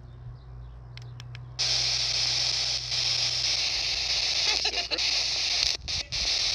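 A few faint clicks, then a handheld spirit box (an FM radio scanning device) switches into loud, steady static hiss about one and a half seconds in. The hiss is broken by a couple of brief gaps and a short snatch of sound from a passing station as it sweeps.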